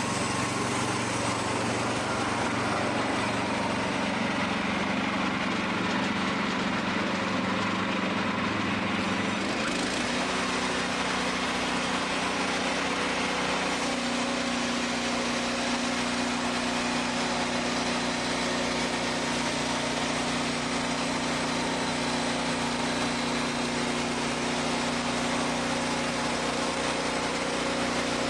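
Wood-Mizer portable bandsaw mill running, its engine humming steadily as the band blade saws through a cherry log. About ten seconds in, the engine note steps up in pitch and holds there.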